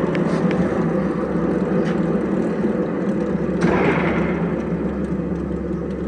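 Blanchard rotary surface grinder running, a steady machine hum from its spinning magnetic table and drive. A deeper low drone comes in about a second in, with a few light clicks and a short hiss about three and a half seconds in.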